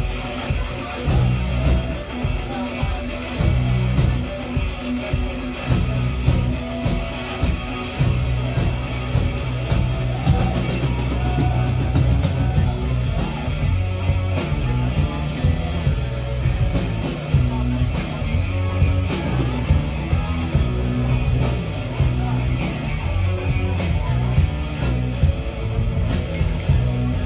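A rock band playing live: electric guitars over a drum kit, with frequent cymbal and drum hits.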